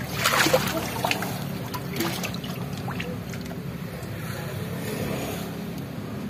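Wet car wheel and tubeless tyre being handled and turned over a tub of water: a splash about half a second in, then water trickling and small knocks, over a steady low hum.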